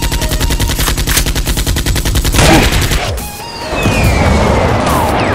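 Automatic gunfire sound effects, a rapid even stream of shots dubbed over toy blasters, for about two seconds. Then a loud explosion blast about halfway through, followed by a rumbling, crackling aftermath with falling whistling tones.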